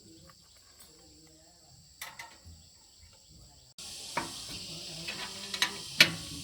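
Faint steady high-pitched chirring with a few soft ticks; about two-thirds of the way through a steady hiss starts suddenly, with three sharp metallic clinks over it.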